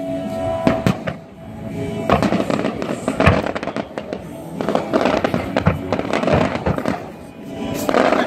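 Fireworks display: repeated bangs and dense bursts of crackling, coming in clusters about two, five and eight seconds in.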